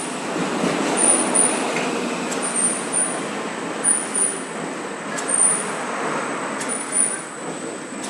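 Plastic-bag cutting machine running on test, a steady mechanical noise with a faint high whine. A short paired high-pitched tick and a louder pulse repeat about once a second with each machine cycle.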